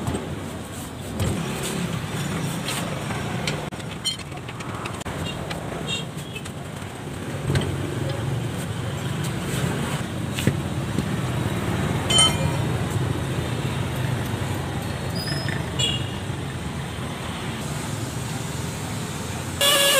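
Steady road traffic noise with a low rumble, broken by a few sharp knocks and brief high squeaks.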